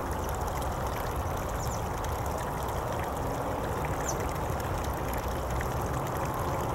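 Steady rushing outdoor background noise, even and unchanging, with two faint high chirps about two and four seconds in.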